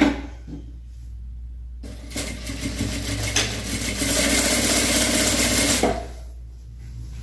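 Sewing machine stitching a seam through joined fabric strips: it runs for about four seconds from about two seconds in, goes louder and faster about halfway through its run, and stops abruptly. A short click comes just at the start.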